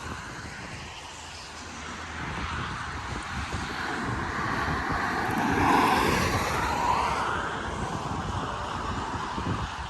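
Gusty wind buffeting the microphone, swelling to a peak about six seconds in and then easing.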